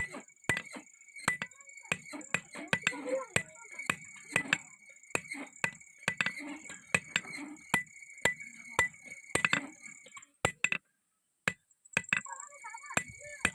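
Blacksmith's hammer striking steel on an anvil in a quick, uneven run of ringing metallic blows, about two to three a second, as a round rod is forged into an axe head. The hammering stops for about a second near the end, then starts again.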